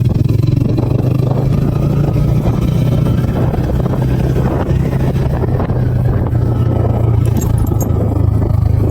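TVS Ronin 225's single-cylinder engine running at a steady pace while the motorcycle is ridden, with a low, even engine hum and road noise.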